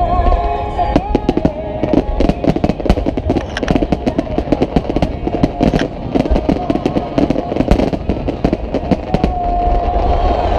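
Aerial fireworks bursting in rapid succession: dense, irregular crackling and popping from many shells going off at once over a steady low rumble. The crackling thickens about a second in and eases near the end.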